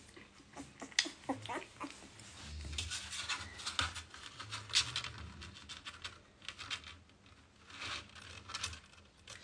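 Scratching, rubbing and soft irregular clicks as a two-week-old puppy is handled and shifts about on a scale while being weighed.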